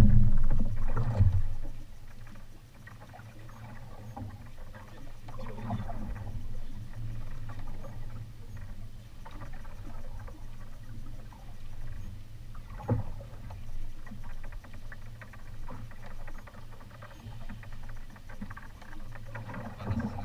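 Choppy water sloshing and slapping against a small fibreglass boat's hull, with a steady low hum underneath and an occasional sharp knock, the clearest about 13 seconds in.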